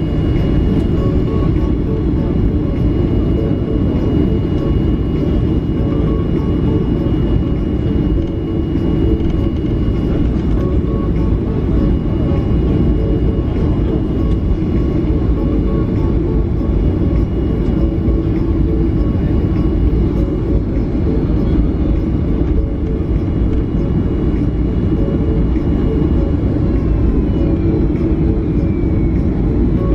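Inside the cabin of a Boeing 737-800 taxiing: steady rumble from its CFM56-7B engines at low taxi thrust, with a faint high whine over it that falls slightly near the end.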